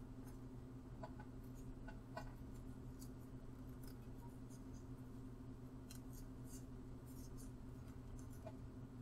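Faint clicks and plastic rustling from safety goggles being handled while their elastic strap is threaded back through the frame, over a steady low hum.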